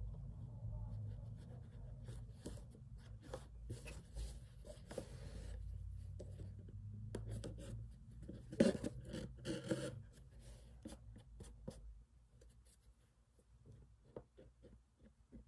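Embroidery floss drawn through fabric stretched in an embroidery hoop, with soft rubbing, scraping and ticking as the needle is worked and the hoop is handled and turned; a louder rustle comes about eight and a half seconds in. A faint low hum runs underneath and fades out after about ten seconds.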